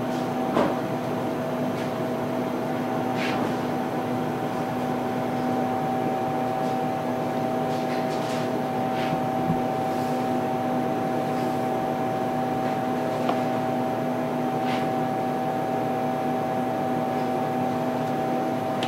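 Steady hum of a running machine with two constant tones, with a few light clicks and knocks scattered through it.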